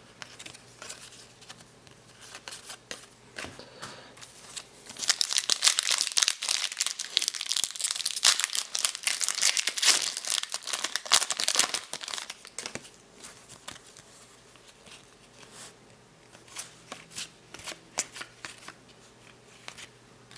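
Plastic trading-card pack wrapper torn open and crinkled by hand: a dense, loud crackle lasting several seconds through the middle. Before and after it come softer scattered clicks of cards being handled.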